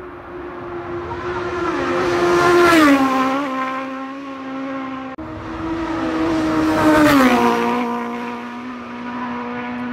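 Two racing motorcycles passing at full speed one after the other, each engine note swelling in loudness and then dropping in pitch as it goes by, about three and seven seconds in.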